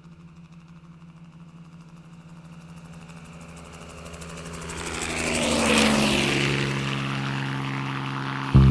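Helicopter growing louder as it approaches, a steady engine tone with a fast rotor beat, passing closest about six seconds in with its pitch dropping as it goes by.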